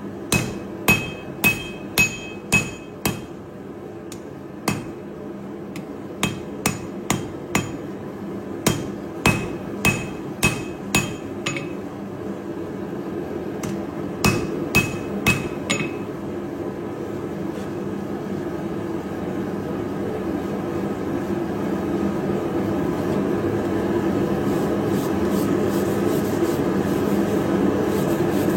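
Hand hammer striking a hot layered steel billet on an anvil in runs of several blows, about two a second, each with a short metallic ring, as the billet's edges are dressed square at the end of forging. From about halfway the blows stop and a steady rushing noise grows gradually louder.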